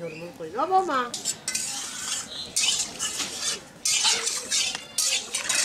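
Stainless steel bowls and pots clattering and scraping in a string of short bursts. A short call that rises and falls in pitch comes about half a second in.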